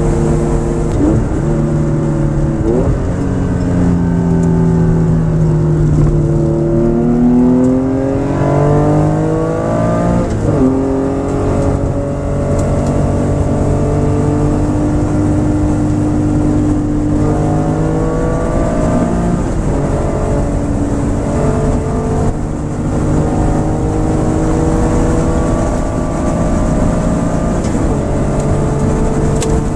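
1967 Porsche 911S's air-cooled 2.0-litre flat-six engine, heard from inside the car, accelerating hard at the race restart after a safety car. The pitch climbs and drops back at each gear change, about ten, twenty and twenty-eight seconds in.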